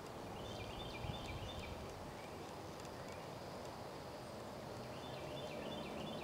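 American Quarter Horse mare loping on a sand arena, her hoofbeats soft and muffled in the footing over a steady outdoor hiss. A bird sings a short, repeated chirping phrase twice, once near the start and once near the end.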